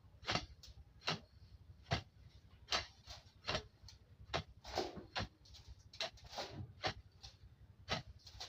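A jembe (heavy hand hoe) chopping into soil and grass in a steady rhythm, about one stroke every 0.8 seconds; some strokes are followed by a short scraping rustle.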